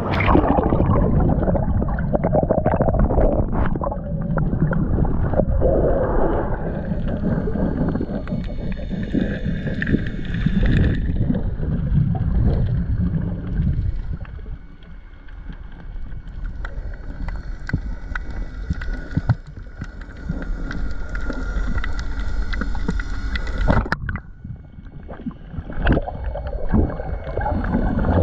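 Splashing and gurgling water heard through an action camera's waterproof housing, first at the surface and then muffled underwater. A few faint steady tones run through the underwater stretch.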